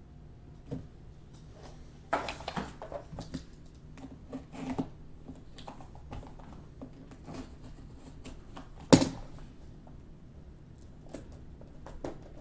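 Handling of a trading-card hobby box: scattered light taps, scrapes and rustles as the box and its lid are moved, with one sharp knock about nine seconds in.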